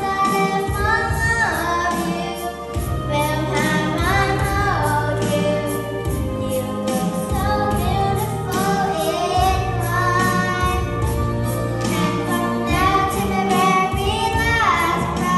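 A young girl singing a song over a recorded backing track with a steady beat and bass line.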